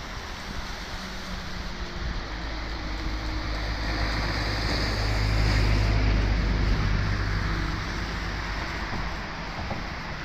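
Steady rushing of a river in flood. A low rumble and hiss swell up over the middle few seconds and then die back.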